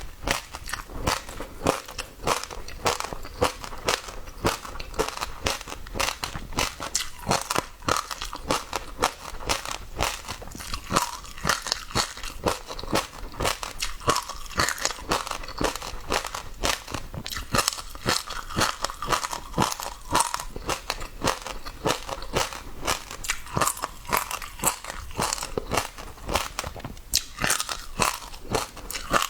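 Passionfruit seeds crunching and popping between the teeth as the pulp is chewed: a dense, irregular run of sharp crunchy clicks, several a second.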